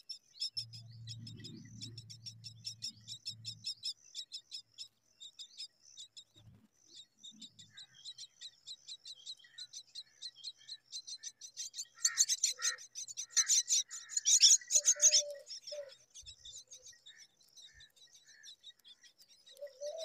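Common myna nestlings begging with rapid, high-pitched chirping. The chirping grows louder and busier for about three seconds in the middle.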